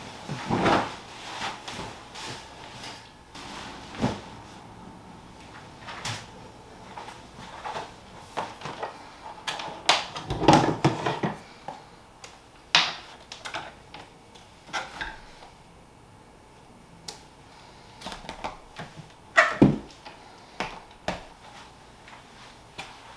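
Bedding rustling and flapping as a bed is made, then scattered light knocks, clicks and rustles of small things handled at a bedside table. The loudest knocks come about halfway through and again near the end.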